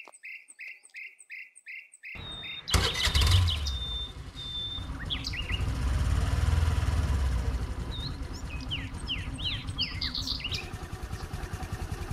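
A bird chirps in a quick, evenly repeated series. About three seconds in, a motor scooter's small engine starts suddenly and keeps running with a steady low rumble while birds go on calling over it.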